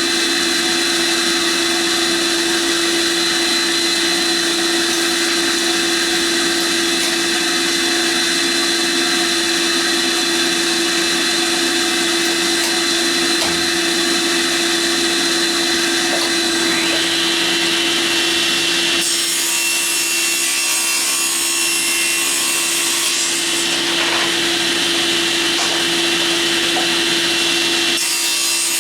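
Electric power tool running steadily with a constant motor whine while it cuts wood. Rasping cutting noise comes in about two-thirds of the way through, is strongest for a few seconds, and returns near the end.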